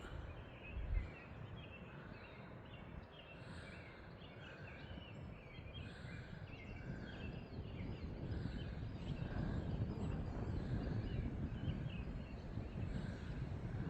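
Birds calling and chirping repeatedly over wind rumbling on the microphone, the wind growing stronger in the second half.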